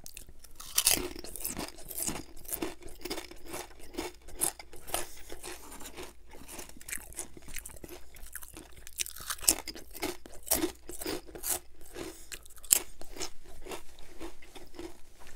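Close-up crunching and chewing of potato chips, a dense run of sharp, irregular crackles with the loudest bite about a second in.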